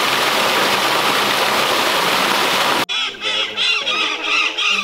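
Water pouring down a waterfall in a steady rush, cut off suddenly about three seconds in. Then a quick run of repeated bird calls.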